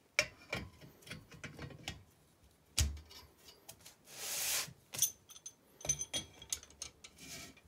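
Metal clutch parts being handled: a Fiat 126 pressure plate shifted on its flywheel, with sharp metallic clicks and knocks, a strong knock near the three-second mark, and a rasping rub about four seconds in. Near the end a metal shaft is pushed into the plate's centre, clicking and rubbing.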